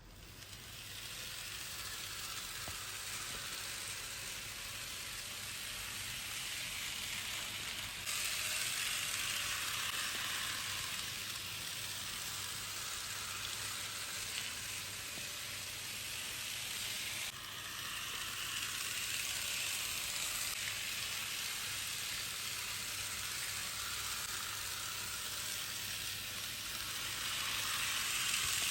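Model bullet train running along the track, a steady hiss from its wheels and motor, after the motor was serviced. The level jumps suddenly about 8 seconds in and drops about 17 seconds in.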